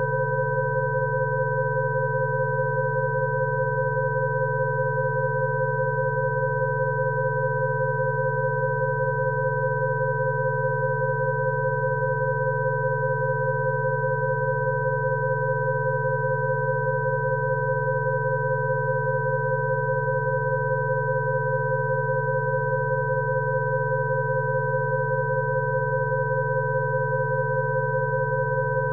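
Rife frequency tone track: several steady electronic sine tones sounding together without change. A low hum sits under two close middle tones and two higher tones.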